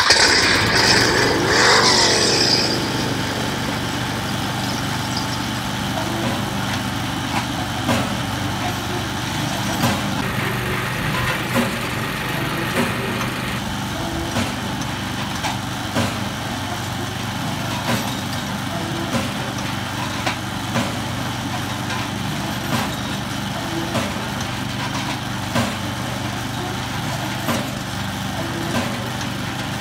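Small petrol engine just pull-started, louder and changing pitch for the first couple of seconds, then running at a steady idle. It drives a belt-and-pulley sound machine with long wooden arms, and a sharp knock sounds every second or two over the engine note.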